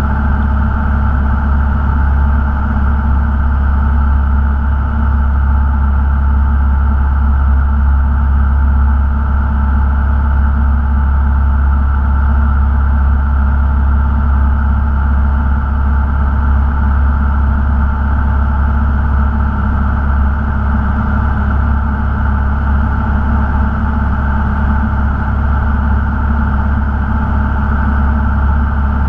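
Cessna 172 Skyhawk's piston engine and propeller droning steadily in flight, heard inside the cabin, with no change in power.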